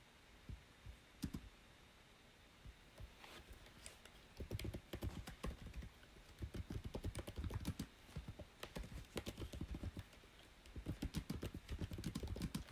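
Typing on a computer keyboard: a few scattered keystrokes at first, then fast runs of key clicks with a short pause, and another quick run near the end.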